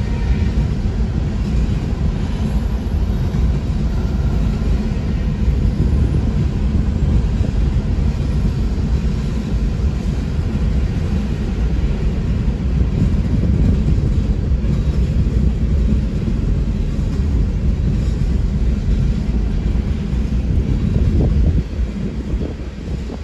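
Empty freight ballast hopper cars rolling past: a steady, loud rumble of steel wheels on rail, easing off a little near the end.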